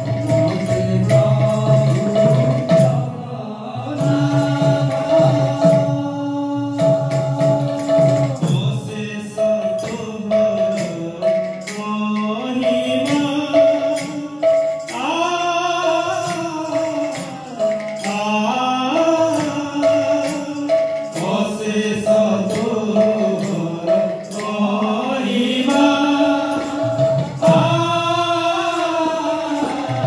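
Odia devotional kirtan: voices chanting a hymn to Jagannath over a steady held note, with percussion keeping a beat.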